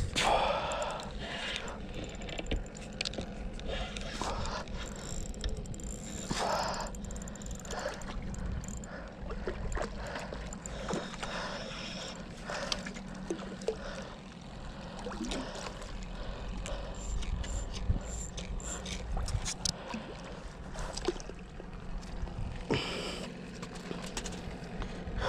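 Spinning reel being cranked as a hooked fish is brought in, its handle and gears clicking, with water slapping and splashing at the rocks and a low wind rumble on the microphone.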